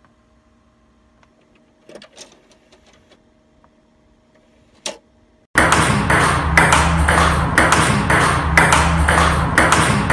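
A faint steady hum with a few light clicks. About five and a half seconds in, loud music with a fast, steady beat over a heavy bass cuts in suddenly.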